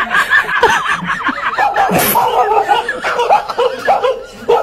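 Several people laughing and snickering together, as in a dubbed laugh track, with a short sharp noise about two seconds in.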